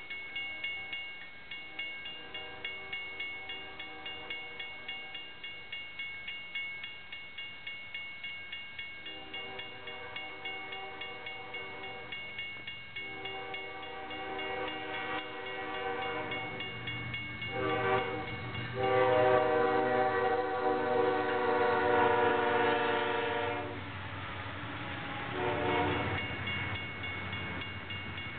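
Railroad grade-crossing bell ringing at about two strokes a second. The horn of a Union Pacific ES44AC locomotive then sounds the crossing signal: two long blasts, a short one and a final long one, loudest in that last blast, then a brief toot. The freight train's rumble rises near the end as it reaches the crossing.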